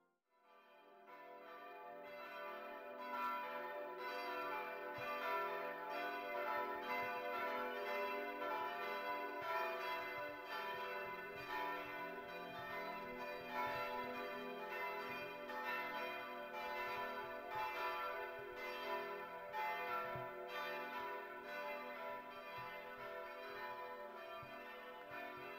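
Church bells pealing, several bells ringing together with overlapping strikes and long ringing tones. The peal fades in over the first few seconds, then holds steady.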